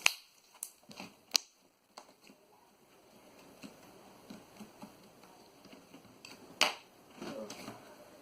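Slime being handled and pressed by hand on a table. It gives a few sharp clicks: one at the start, one about a second and a half in and one near seven seconds, with soft, quiet handling sounds in between.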